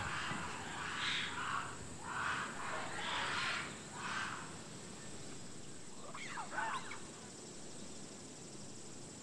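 Animal calls: about five rasping calls over the first four seconds, then a short warbling call with gliding pitch around six seconds in.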